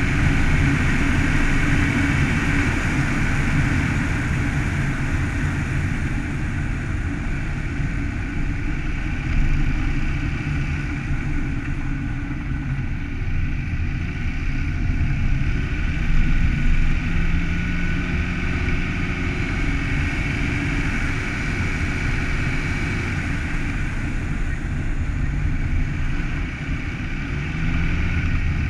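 A car driving steadily along a road: continuous engine and tyre noise, the engine pitch shifting only slightly.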